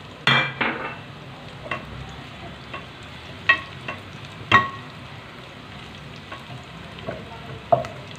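Sliced onions and freshly added cumin seeds frying in oil in an aluminium saucepan, sizzling steadily: the tempering (baghar) stage. A wooden spoon stirs them and knocks sharply against the pan several times, loudest about four and a half seconds in.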